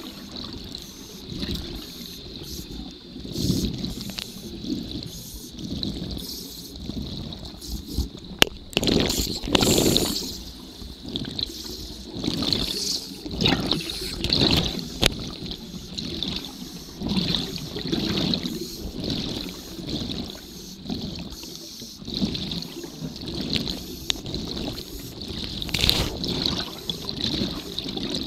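Underwater recording of scuba diving: bubbles gurgling in irregular surges every second or two, with a few sharp clicks.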